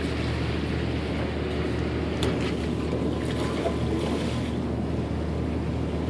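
A boat's engine droning steadily at low pitch, with wind and the rush of sea water over it.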